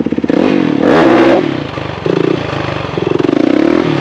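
Motorcycle engine idling with a fast, even beat, then revved from about a third of a second in, its pitch climbing and dropping several times.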